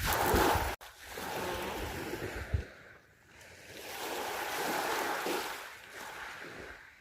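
Sea waves washing in on the shore, the surf swelling and fading twice. Wind rumbles on the microphone for the first couple of seconds.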